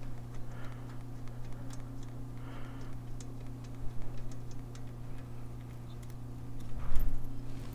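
Irregular light metallic clicks and ticks of a hand tool and fingers working a spark plug loose from a Harley-Davidson Sportster's cylinder head. A louder knock comes near the end, and a steady low hum runs underneath.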